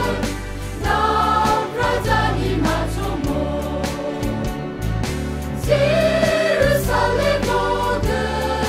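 Mixed choir of women's and men's voices singing a hymn in Garo, with phrases changing every second or two over a steady low accompaniment.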